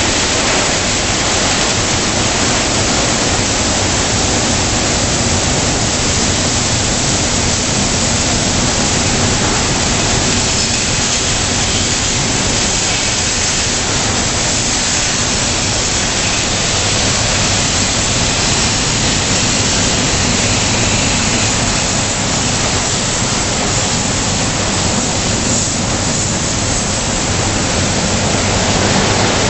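Automatic conveyor car wash running: water jets spraying and big rotating brushes scrubbing a van, a loud, steady rushing noise.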